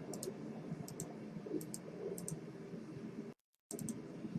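Computer mouse clicking, short sharp clicks, often in quick pairs, about one or two a second, over a steady low room hum. The sound cuts out completely for a moment about three and a half seconds in.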